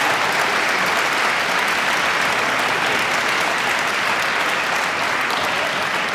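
Applause from the audience and the choir on stage: a dense, steady clapping that eases slightly toward the end.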